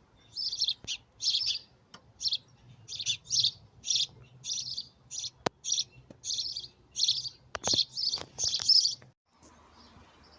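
Small garden bird chirping, short high chirps repeating two or three times a second, with a few sharp clicks among them; the chirping stops abruptly about nine seconds in.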